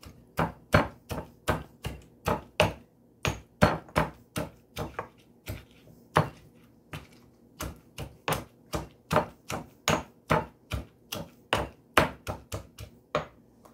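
A pestle pounding green papaya salad ingredients with pieces of tomato in a mortar: repeated strikes, about three a second, with a few short pauses.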